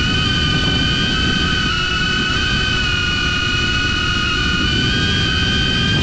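DJI Avata FPV drone with Axis C175 brushless motors and propellers, running with a steady high whine whose pitch wavers slightly as the throttle shifts. Under it is a low rumble of strong wind on the microphone.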